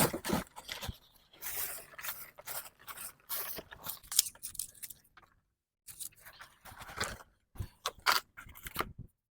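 Irregular scraping, crackling and rustling of a shipping box and its packing being handled and opened by hand, with a short pause about halfway through.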